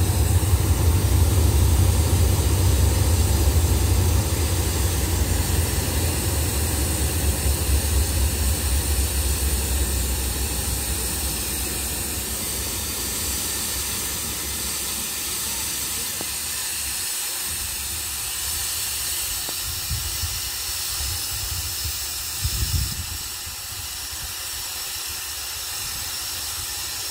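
Hitachi 4505 diesel-electric locomotive's engine running with a deep low rumble that fades away over the first dozen seconds, over a steady hiss that carries on throughout. A brief low thump near the end.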